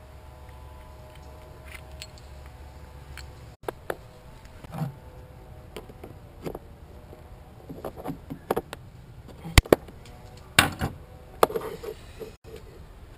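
Irregular clicks, snaps and knocks of hand work on an outboard's fuel hoses: cutters snipping at a tie wrap on a hose fitting and the hose being pulled and handled. The sharpest snaps come near the middle and after it.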